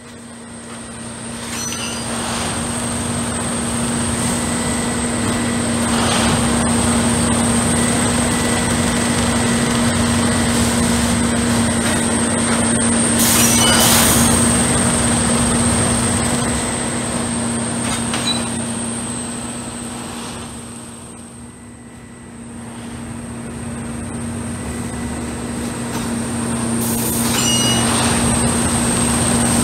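08-475-4S track tamping machine running: a steady machine drone with a constant low hum and a high whine, broken by a few brief louder bursts of noise, and easing off for a moment about two-thirds of the way through.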